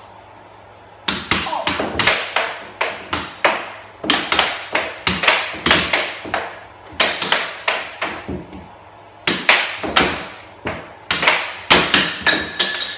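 Air hockey rally: the plastic puck clacking against the mallets and the table's rails in quick runs of sharp knocks, several a second, with short pauses between runs. It starts about a second in.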